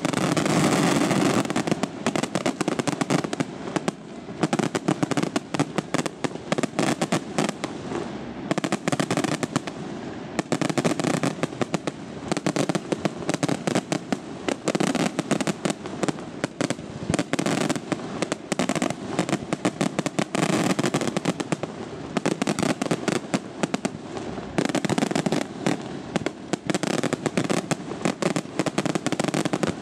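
Aerial fireworks display by Ponte Fireworks: a dense, near-continuous barrage of shell bursts, bangs and crackling, swelling into heavier volleys several times.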